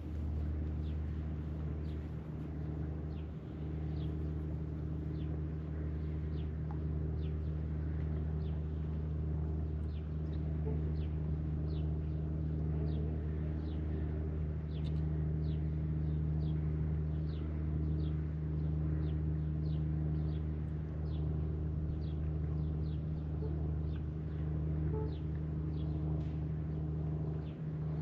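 A steady low machine hum drones throughout, while a bird repeats short, high, downward chirps roughly once or twice a second.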